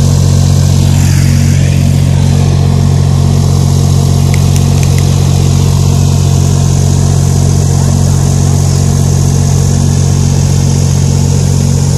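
Loud, steady low machine hum that does not change in pitch or level, like a motor or engine running at idle.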